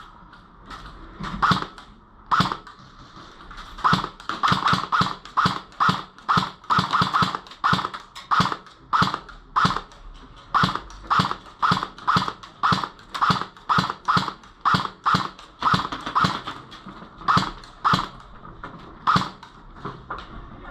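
Airsoft guns firing single shots: a few scattered shots in the first seconds, then a steady string of about two to three shots a second for most of the rest.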